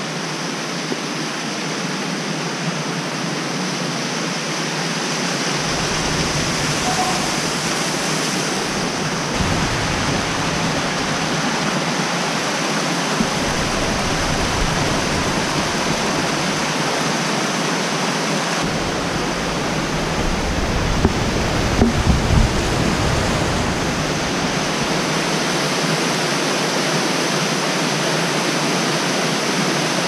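Waterfall rushing steadily, with water pouring down over boulders into a pool. Low rumbles come and go under it, and a few soft thumps sound about two-thirds of the way in.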